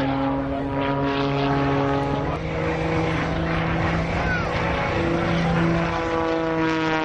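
Oracle Challenger aerobatic biplane's piston engine and propeller running at high power overhead, the pitch shifting up and down several times as it manoeuvres.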